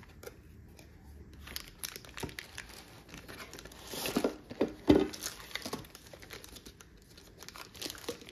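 Cardboard box being opened and its contents in a clear plastic bag slid out: crinkling plastic and rubbing cardboard, irregular and loudest about four to five seconds in, with one sharp click.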